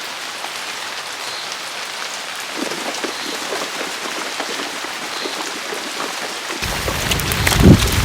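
Steady hiss of heavy rain falling on a surface. Near the end a louder, deeper rushing layer comes in suddenly, with a thump just before the close.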